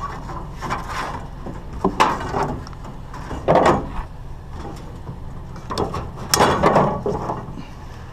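Scrap pieces being handled and loaded into a pickup truck bed: irregular knocks, clatters and scrapes of metal and plastic, loudest about three and a half and six to seven seconds in. A steady low engine hum runs underneath.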